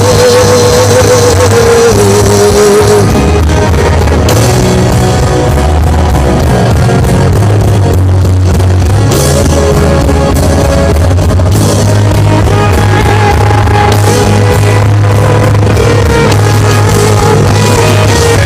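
Loud worship band music with a steady bass line and guitar, a held melody note standing out near the start.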